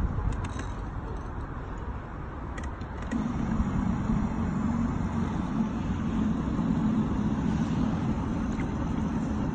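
A steady low motor hum comes in about three seconds in and holds, over outdoor background noise.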